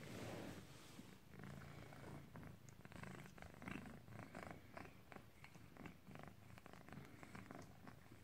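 Calico exotic shorthair kitten purring, a faint steady low rumble.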